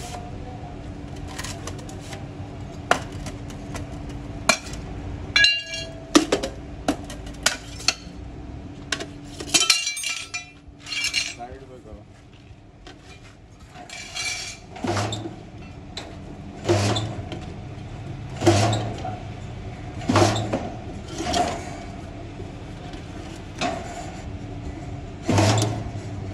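Metal clinks and knocks from hand work on sheet-metal parts of a car exhaust silencer, irregular at first. From about halfway through they become heavier blows roughly every one to two seconds. A steady machine hum stops about five seconds in.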